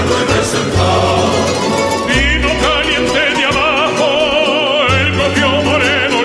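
Background music with a steady bass line; from about two seconds in, long high notes with a wide vibrato carry the melody.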